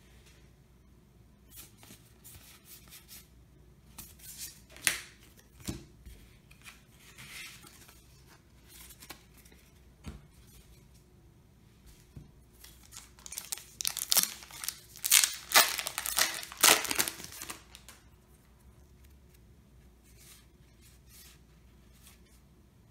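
Yu-Gi-Oh! trading cards being handled with scattered light clicks and snaps, then a foil booster pack being torn open: a loud stretch of crinkling and tearing wrapper from about 13 to 18 seconds in, followed by a few soft card clicks.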